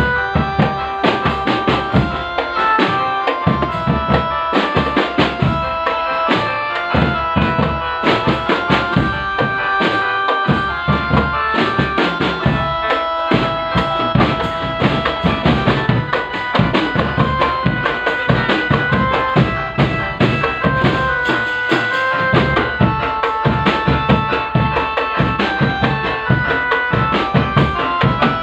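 Drum-band music of the kind that accompanies a can macanan kadduk procession: bass and snare drums beating a fast, steady rhythm under a melody of held notes that step from pitch to pitch.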